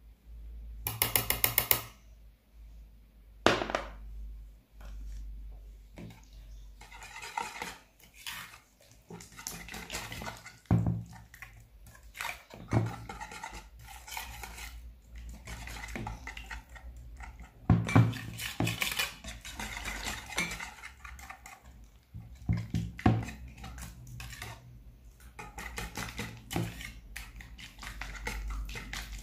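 Wire whisk clicking and scraping against a plastic mixing bowl while beating a batter, with a quick rattle of clicks about a second in and scattered knocks of utensils on the bowl.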